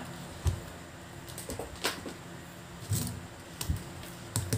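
About five scattered knocks and clicks of handling on a workbench: multimeter test probes being set down and a Samsung air-conditioner inverter circuit board being turned over on the bench mat.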